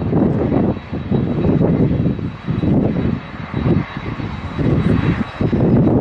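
Twin-engine jet airliner climbing out, its engines running with a steady roar, under heavy wind gusts buffeting the microphone in irregular surges and dips.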